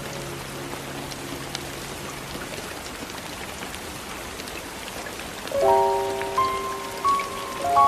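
Steady rain falling on a surface, with soft music notes over it. Held notes fade out about a third of the way in, and a new set of notes comes in about two-thirds through.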